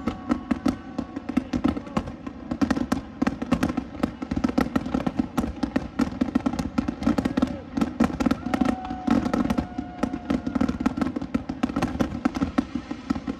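Fireworks finale barrage: a dense, unbroken run of bangs and crackles, many per second.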